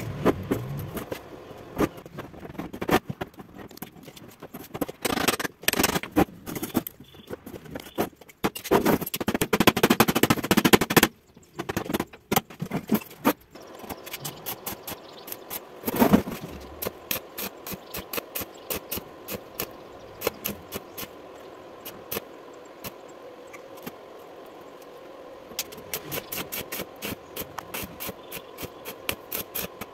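Metal knocks, clanks and a stretch of scraping as a steel wheelbarrow frame and welding clamp are handled and set up, then in the last few seconds a stick welding arc crackling in fast, even clicks as a weld is laid on the frame.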